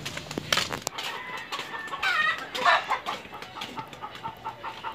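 Chickens clucking, with a couple of louder calls about two seconds in and a quick, regular run of clucks in the second half.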